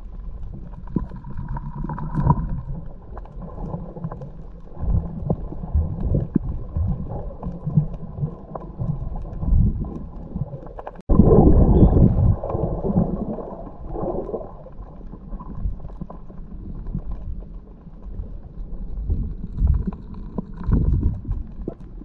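Muffled underwater noise picked up through a camera's waterproof housing: a low, uneven rumble of moving water with scattered small knocks and clicks. About eleven seconds in the sound breaks off for an instant and comes back louder.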